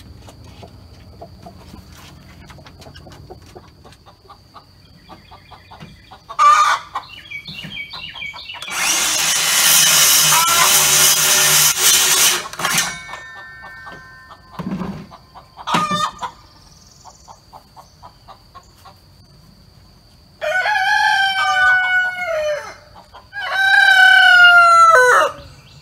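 A handheld circular saw cuts through a wooden 2x4 for about four seconds, starting about nine seconds in. A rooster crows twice near the end, each crow about two seconds long, louder than the saw. A couple of short chicken calls come earlier.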